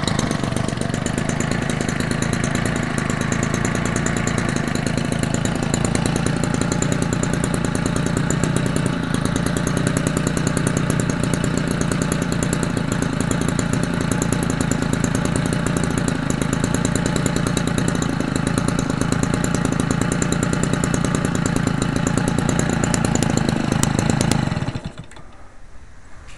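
McCulloch 32cc two-stroke string-trimmer engine, converted for an RC plane and turning an 18x6 propeller, running steadily at a constant speed. It stops abruptly about 25 seconds in.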